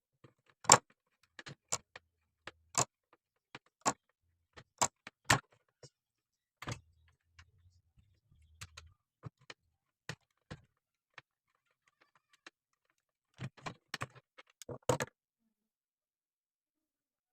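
Scattered sharp clicks and light metallic clinks, about twenty irregular strikes, the loudest near the start and a quick cluster near the end: small metal parts and tools handled during disassembly.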